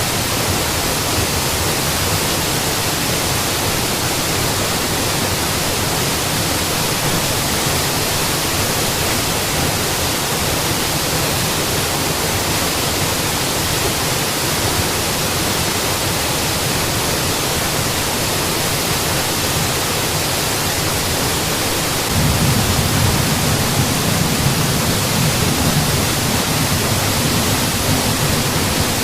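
A mountain waterfall's steady rush of falling water. About two-thirds of the way through, the low rumble steps up and gets louder.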